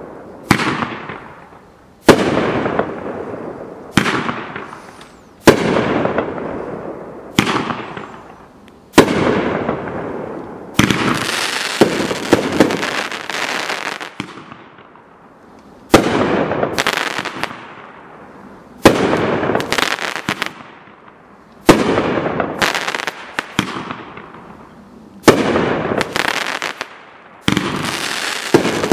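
A Mad Ox Fireworks Velociraptor aerial firework going off shot after shot: about a dozen sharp bangs, roughly every one and a half to three seconds, each trailing off in a crackling hiss. The shots come thicker for a few seconds near the middle.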